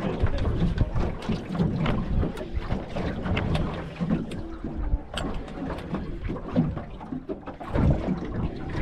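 Wind gusting on the microphone and water slapping a small boat's hull at sea, with scattered irregular knocks and clicks.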